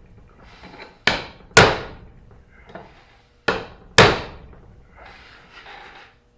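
Four hammer blows on metal in two quick pairs, each ringing briefly, driving a part into a Ford 9N tractor's rear axle housing during a seal replacement. Light scraping follows between the pairs.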